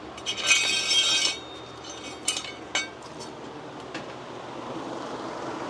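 Hard metal objects being handled: a ringing, jangling clatter lasting about a second, then a few sharp clinks and knocks.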